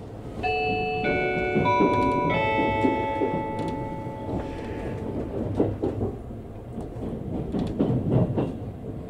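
A four-note chime, its notes coming in about two thirds of a second apart and ringing on together before fading, over the steady low running noise of an electric train.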